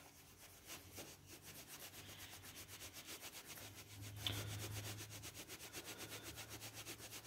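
A cloth rubbing back and forth over a metal chipset heatsink in quick, even strokes, about five or six a second, wiping off old thermal-pad adhesive residue. The rubbing is faint.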